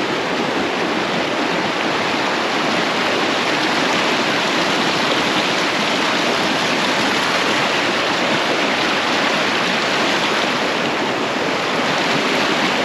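A mountain trout stream rushing close by: a steady, even wash of running water.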